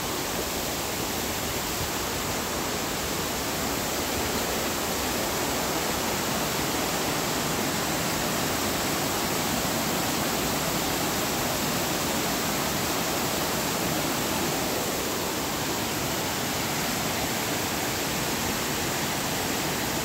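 Waterfall and stream water rushing steadily over rocks.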